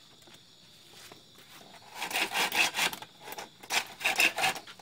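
Hand saw cutting into a bamboo pole in rapid rasping strokes, in two bursts starting about two seconds in. Crickets trill faintly before the sawing starts.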